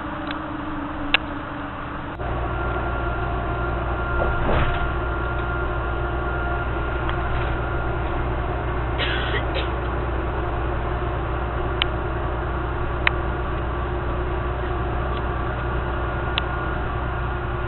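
Steady low rumble of a vehicle heard from inside, with a faint steady engine hum. It starts abruptly about two seconds in, and a few sharp clicks sound over it.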